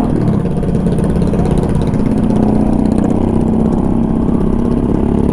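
Honda Bros 160's air-cooled single-cylinder engine running steadily at a cruise through a straight-through exhaust, heard from on the bike with wind rush over it.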